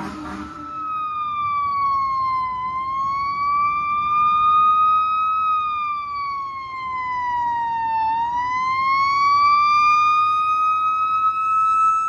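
Fire truck siren sounding a slow wail, its pitch falling and rising over several seconds at a time, then holding steady near the end.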